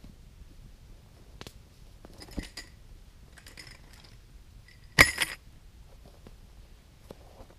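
Small metal items clinking and jangling a few times as gear is unpacked from a bag on the ground. The loudest clink comes about five seconds in.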